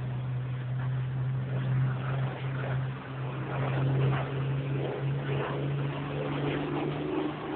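Hawker Hurricane's Rolls-Royce Merlin V12 engine giving a steady drone as the fighter flies in the distance. The note gains some higher tones near the end.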